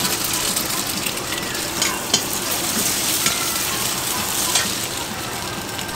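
Egg and cabbage frying in hot oil in a wok: a steady sizzle, with a metal ladle clinking and scraping against the wok a few times.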